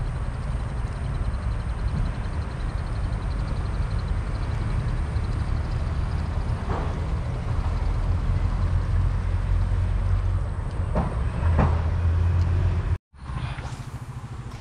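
Wind buffeting the microphone: a loud, uneven low rumble that stops abruptly about thirteen seconds in, giving way to a quieter outdoor background.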